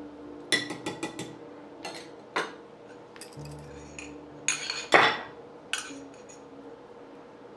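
A metal spoon clinking and scraping against glass bowls as it scoops out thick soaked semolina paste: a string of sharp clinks, the loudest about five seconds in.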